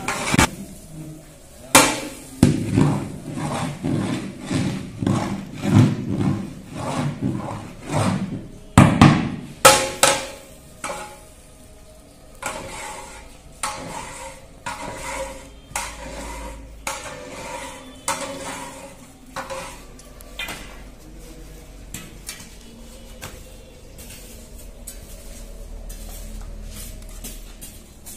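Long metal spatula stirring rice in a large metal cooking pot, a quick run of scraping knocks against the pot that is loud through the first ten seconds or so and fainter after.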